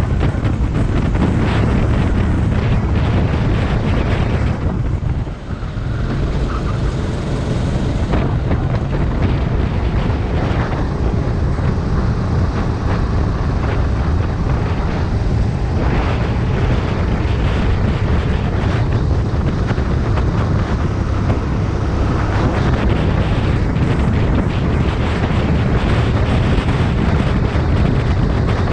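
Sodikart rental kart's engine running hard at racing speed, heard on board with wind buffeting the microphone. The sound drops briefly about five seconds in, then picks up again.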